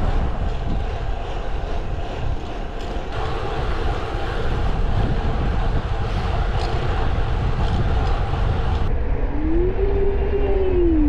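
Heavy wind rush and road rumble on a camera riding along with a road-bike race at speed, loud and steady. Near the end a single tone glides up and then back down.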